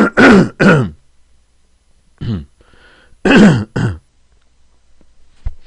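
A man coughing and clearing his throat in short bursts: three in quick succession at the start, another about two seconds in, and two more about three and a half seconds in.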